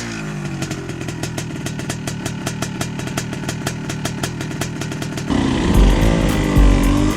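Enduro motorcycle engine idling with an even, rapid beat, then revving up and running louder and rougher about five seconds in.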